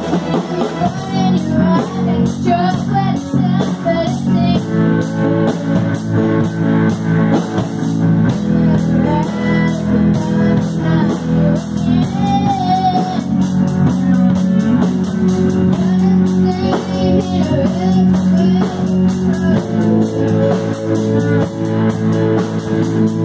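Amateur rock band playing live: electric guitar chords, electronic keyboard and a drum kit keeping a steady beat, with a girl singing the melody.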